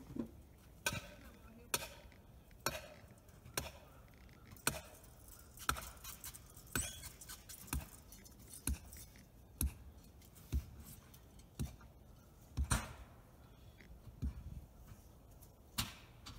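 Steady hammering: sharp, separate blows at about one a second, with a short gap near the end.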